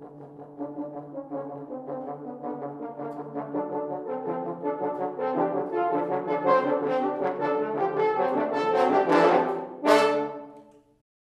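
French horn quartet playing a busy passage of quick notes that grows steadily louder, ending on a loud final chord about ten seconds in that then stops.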